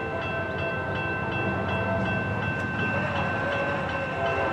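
Distant train horn sounding a long, steady chord over a low rumble from the approaching train.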